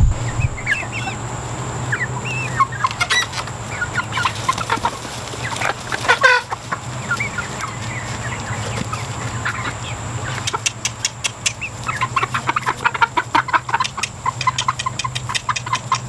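Young chickens peeping and clucking, with a fast run of short peeps in the last few seconds.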